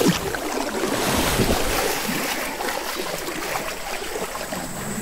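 Nile crocodiles lunging and thrashing in shallow river water: a sharp splash right at the start, then steady churning and sloshing of disturbed water.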